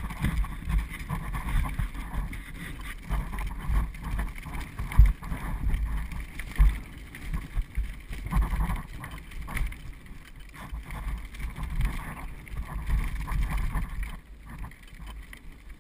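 Bike trailer rolling along a paved path: a steady low rumble from its wheels with irregular bumps and rattles, the sharpest jolt about five seconds in, and wind buffeting the microphone.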